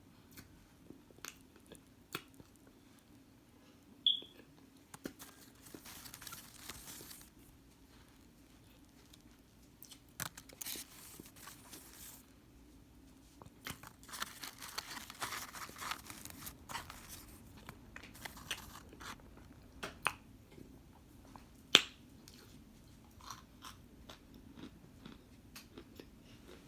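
Close-up biting and chewing of hard microwaved cornstarch chunks, heard as several crunchy spells of a second or more with sharp single snaps between them, the loudest snap a few seconds before the end.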